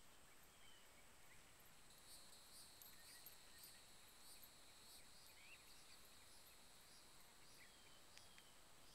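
Near silence: faint outdoor field ambience, with a steady high insect drone that pulses evenly from about two seconds in, and a few short, distant bird chirps.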